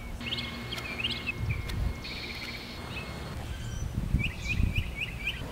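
Small birds chirping in short calls, with a quick run of about six chirps about four seconds in, over a low, uneven rumbling background noise.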